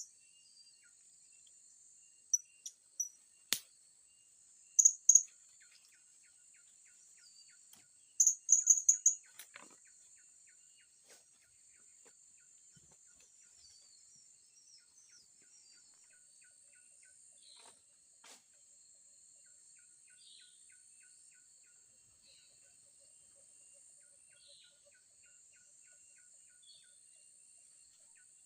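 Blue-crowned hanging parrots giving short, very high, thin chirps, a few single calls then a rapid run of them about eight seconds in. Behind them is a steady high-pitched insect drone with faint repeated ticking chirps.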